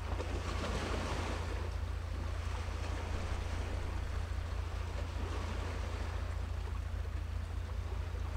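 Wind rumbling on the microphone over a steady wash of sea waves, with the surf swelling briefly about a second in.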